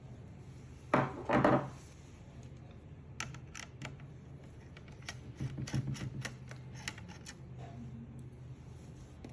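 Hands working on computer hardware during an SSD upgrade: a short clattering scrape about a second in, then a run of about a dozen light, sharp clicks and taps, over a steady low hum.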